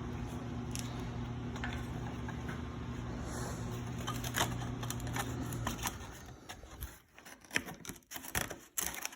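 Motor of a Makita 4x24 belt sander, rebuilt as a belt grinder, running steadily. It cuts off about six seconds in and winds down, followed by a few sharp clicks and knocks of handling the machine.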